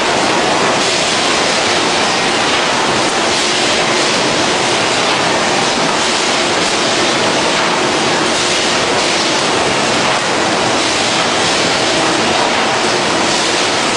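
A 100-layer hot press line running, with loud, steady mechanical noise and no distinct knocks or strokes.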